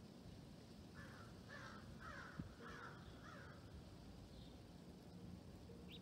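A bird giving five short, harsh calls in quick succession, faint against a quiet background.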